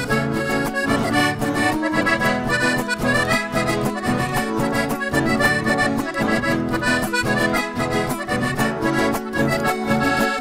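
Piano accordion playing the melody of a cumbia instrumental break over strummed acoustic guitars, in a steady dance rhythm.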